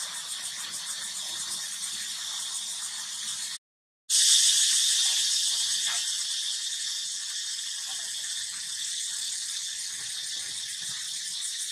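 Steady high-pitched insect chorus, a fast pulsing buzz. It cuts out completely for about half a second a few seconds in, then returns louder and slowly eases back down.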